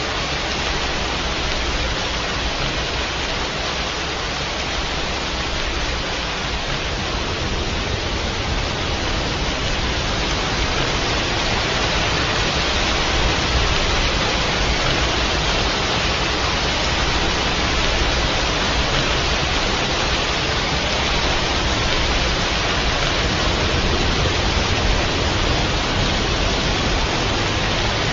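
Steady, dense rainfall: an even wash of noise with no separate drops, thunderclaps or other events standing out.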